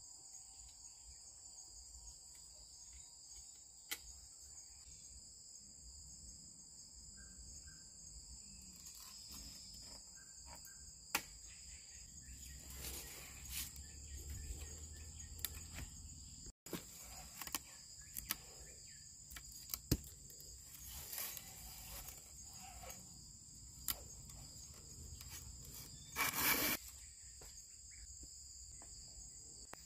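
A steady high-pitched chorus of forest insects, with occasional faint clicks and knocks and some rustling; a brief louder rustling noise stands out about 26 seconds in.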